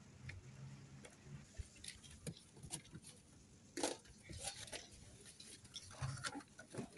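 Faint scattered rustling and crackling of dry straw on the ground, in short irregular clicks, with the loudest crackle a little past the middle.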